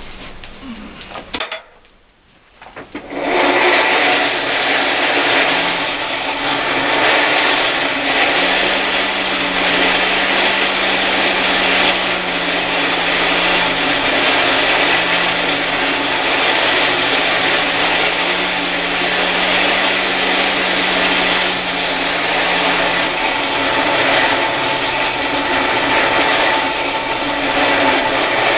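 Forge blower switched on about three seconds in and running steadily, a loud, even rush of air that fans the fire to heat the iron.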